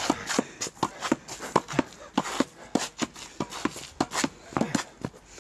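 Shuffling footsteps with quick, irregular taps, several a second.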